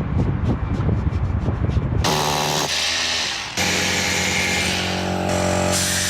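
A power tool starts abruptly about two seconds in and runs steadily with a high-pitched motor tone, dipping briefly about a second later. Before it there is a low rumble like wind on the microphone.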